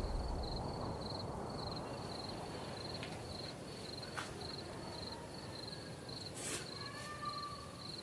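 Crickets chirping in a steady run of short, high chirps, a couple each second, over faint night ambience. A few soft clicks come through, the sharpest about six and a half seconds in.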